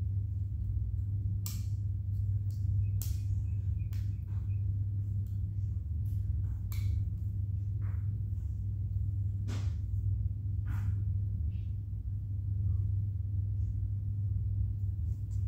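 Plastic Lego Technic pieces being handled and fitted together: a scatter of short clicks and taps at irregular intervals, over a steady low hum.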